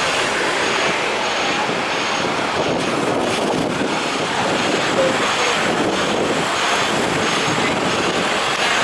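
Steady rumble of vehicle engines and street traffic, with a taxi driving close past at the start. A faint high pip repeats about every 0.7 seconds throughout.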